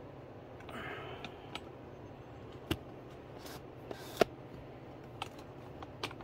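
Scattered light metallic clicks and taps from working a hydraulic shop press and its jack handle, with one sharper click about four seconds in.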